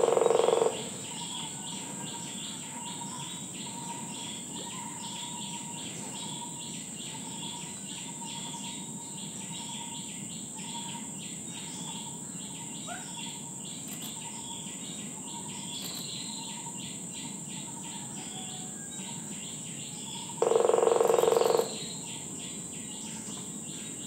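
Streak-breasted woodpecker drumming on a tree trunk. There are two loud rolls, each about a second long: one at the start and one near the end. Under them runs a steady high-pitched insect buzz and a faint note repeated about twice a second.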